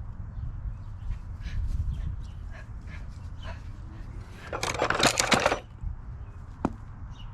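Hand tools rattling in a carrying toolbox as it is handled: a dense metallic clatter lasting about a second, past the middle, then a single sharp click near the end.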